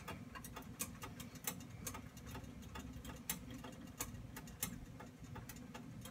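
Faint, irregular crackling and popping of spices and herbs (smoked paprika, basil) frying in hot olive oil in a frying pan, many small pops at uneven spacing over a low steady hum.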